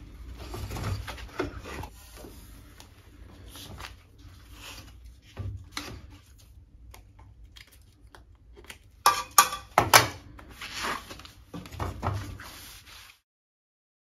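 Gloved hands rubbing and handling PVC outer wrap tape on a pipe, then a few sharp snips of scissors cutting the tape about nine seconds in.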